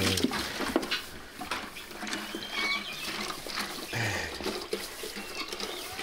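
Calf milk replacer being poured from a plastic jug into a plastic bucket: liquid splashing and gurgling, with a few sharp knocks and clicks.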